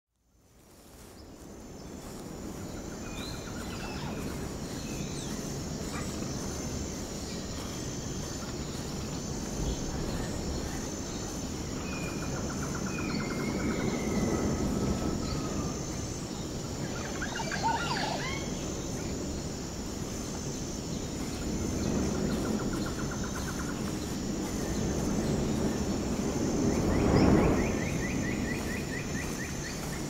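Outdoor ambience: small birds chirping and trilling now and then over a steady low rumble, with a faint high note repeating about once a second.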